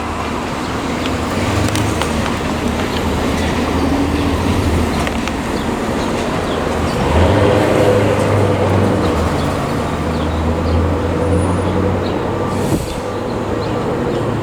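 City street traffic: steady road noise and engine hum, swelling as a vehicle passes about seven seconds in.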